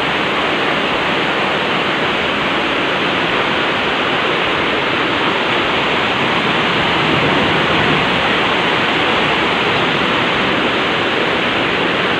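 Brown torrent of a volcanic mudflow (lahar) rushing down a village street, making a loud, steady rush of water and mud.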